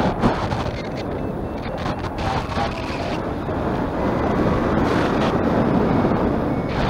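Wind buffeting the microphone of a camera in flight: a loud rushing noise that swells and eases a little.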